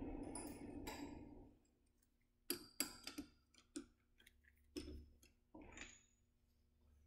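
Metal lathe running with its chuck spinning, winding down and falling quiet about a second and a half in. Then a series of sharp clicks and clinks as the finished metal part is handled and taken out of the three-jaw chuck.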